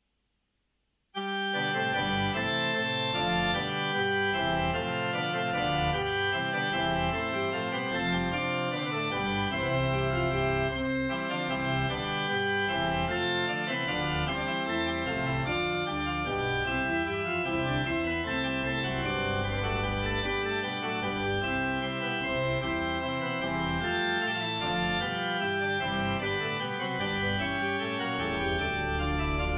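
Organ music that cuts in suddenly about a second in and plays on in held, changing chords.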